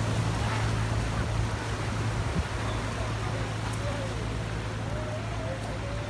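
Floodwater rushing and churning, with a steady low engine hum underneath and faint voices in the distance.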